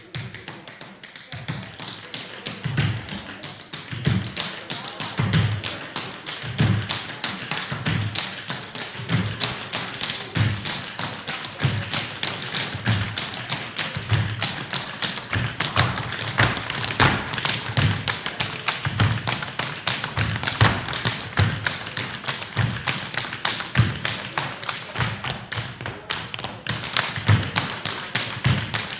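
A troupe of tap dancers' shoes striking a wooden floor in fast, clattering rhythm, with regular heavier stamps among the taps. The tapping starts about a second in.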